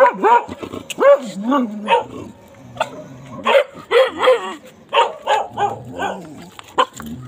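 A dog whining and yipping in a rapid string of short calls that bend up and down in pitch, the sound of a dog fussing for attention.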